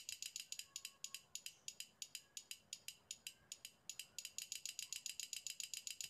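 An adjustable flasher relay driving a 12 V horn relay, the relays clicking rapidly at about eight to ten clicks a second. This is the on-off pulsing of an interrupter circuit meant to cut a motorcycle's pulser signal for an idle-rumble or rapid-backfire effect, here on a bench test.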